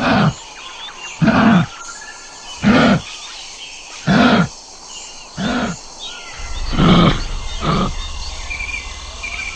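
A kangaroo giving about seven short, low calls, roughly one every second and a half. Birds chirp faintly between the calls, and a low rumble sets in a little past the middle.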